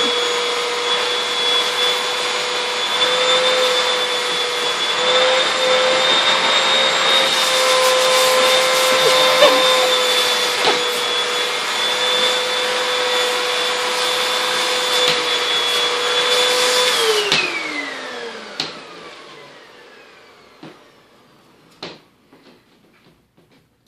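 Vacuum cleaner running with a steady high whine. About seventeen seconds in, its motor winds down, the whine falling in pitch as it fades. A few light clicks and taps follow.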